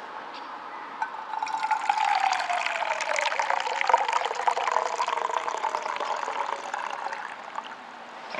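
A hot drink poured from a vacuum flask into a mug: a steady splashing stream that starts about a second in and tails off near the end.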